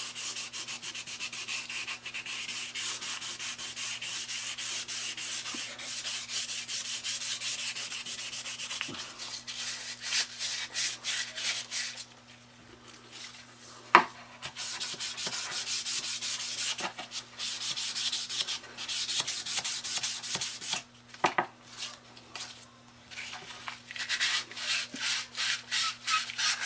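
220-grit sandpaper rubbed over a finished wooden mini bat in quick back-and-forth strokes, a light sanding between coats to take off runs in the finish. The strokes stop for a couple of seconds about twelve seconds in, broken by one sharp click, then resume.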